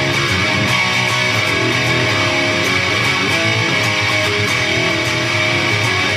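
Electric guitar played through a Peavey Triple XXX II tube amp head and speaker cabinet, strummed in a steady run of distorted rock chords at a high, even level.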